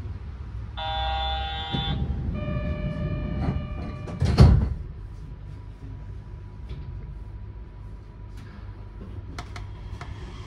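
Yurikamome train door-closing signal: a buzzy electronic tone for about a second, then a clearer tone for about a second and a half. The sliding doors then shut with a heavy thud, against the low rumble of the train.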